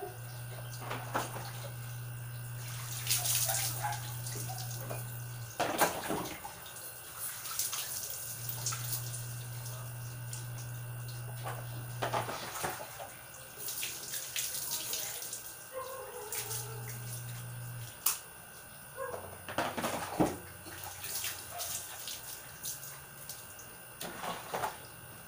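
Water sloshing, pouring and splashing in plastic basins as water is tipped and scooped by hand, in irregular bursts. A steady low hum comes and goes in stretches of a few seconds.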